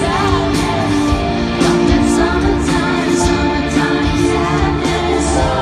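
Live pop band with a woman singing, heard through a large concert PA from within the crowd, with a steady beat.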